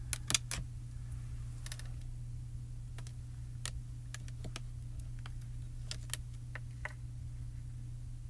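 Light clicks and taps of hard plastic stamping tools being handled on a stamping platform. A quick cluster comes in the first half second, then single clicks every second or so from about three seconds in, over a steady low hum.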